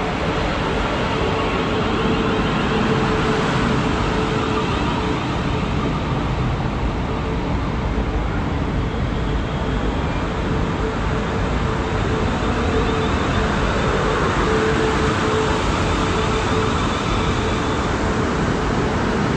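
British Rail Class 450 Desiro third-rail electric multiple unit running into the platform, its carriages rolling past close by: a steady rumble of wheels and running gear with a hum that comes and goes.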